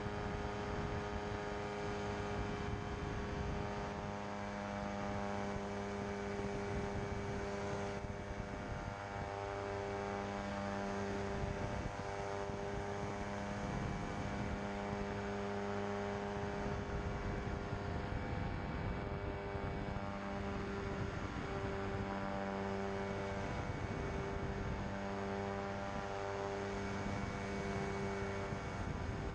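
Pterodactyl Ascender II ultralight's engine and pusher propeller running steadily in cruising flight, a constant drone. Its tone wavers slightly in the second half.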